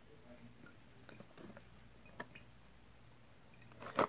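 Faint drips and small clicks as isopropyl rubbing alcohol is poured from a plastic tub back into its plastic bottle, with a sharper plastic click near the end.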